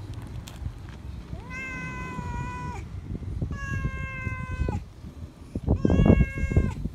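Tabby-and-white feral cat meowing loudly three times for attention, each meow about a second long and held at a steady pitch.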